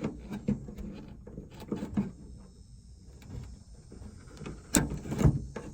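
Scattered light clicks and knocks of a car door-latch cable and its plastic clips being handled and pressed into place inside the door, with two sharper clicks near the end.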